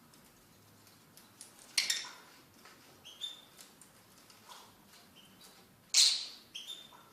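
Fischer's lovebirds giving short, high chirps among soft scratchy rustles and clicks. Two louder sharp rasping bursts come about two seconds in and again about six seconds in.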